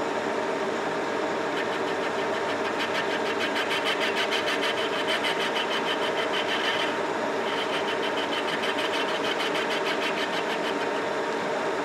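Metal lathe running with its spindle turning while an insert tool takes a very light finishing cut on a metal part to smooth its surface. A fast, even pulsing from the cut comes in about two and a half seconds in, stops briefly near seven seconds, then resumes.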